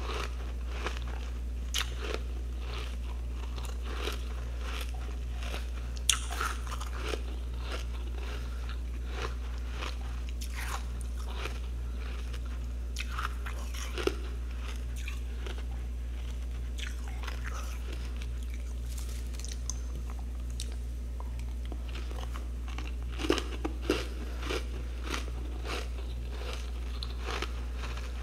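Crunching of packed freezer frost: scattered short crunches, a few of them close together near the end, over a steady low hum.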